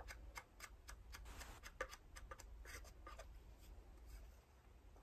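Faint small clicks and scrapes of a wooden craft stick against paper cups as liquid foam resin is scraped from one cup into another.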